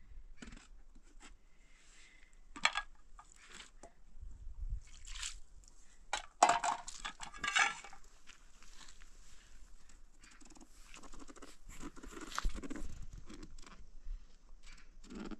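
Knife slicing a raw eggplant by hand, with soft cuts, scrapes and light clinks of metal pans and a bowl. A louder rasping sound comes about six and a half seconds in and lasts about a second.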